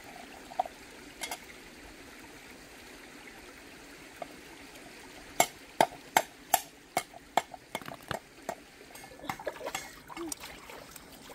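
Knife chopping on a cutting board: a run of sharp, even knocks, about two or three a second, starting about halfway through, over the steady trickle of a shallow stream. Near the end, softer irregular clicks and light splashing of hands in water.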